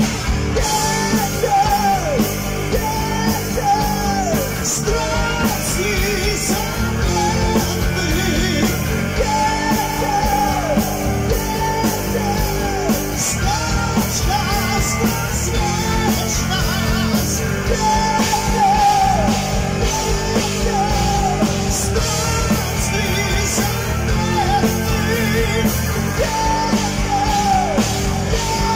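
A heavy metal band playing live: a male singer holding long notes over electric guitar, bass guitar, keyboard and drums, loud and continuous.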